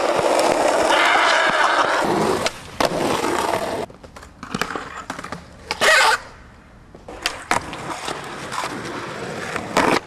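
Skateboard wheels rolling loudly and steadily over rough pavement for the first few seconds, then sharp clacks and knocks of the board, with one loud, brief impact about six seconds in.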